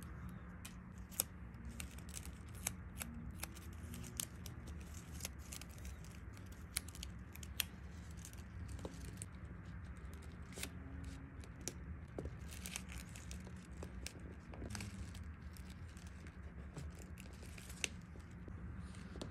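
A string of sharp, irregular small clicks and snips, with some crinkling, over a steady low hum; a few clicks stand out louder.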